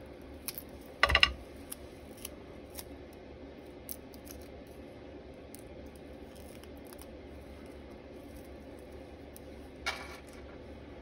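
Small scissors snipping double-sided tape near the end. About a second in there is a short, loud crackling burst, and a few light clicks of handling follow.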